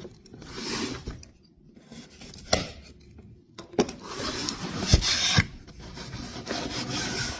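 Packaging being opened by hand: stretches of rubbing and scraping with three sharp knocks, about two and a half, four and five seconds in.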